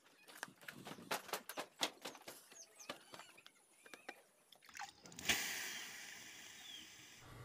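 Wood fire burning down to charcoal, crackling with sharp, irregular pops for the first four or five seconds. About five seconds in, a steady hiss starts suddenly.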